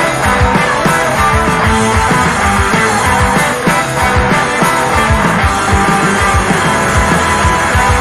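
Background rock music with a steady drum beat.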